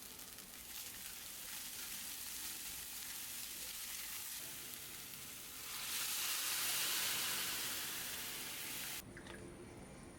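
Food sizzling as it fries in a pan. The sizzle grows louder about six seconds in and then cuts off abruptly near the end.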